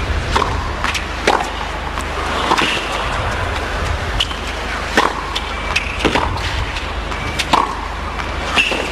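Tennis rally on a hard court: sharp pocks of the ball off the rackets, with its bounces, about one every second or so, over a steady low background hum.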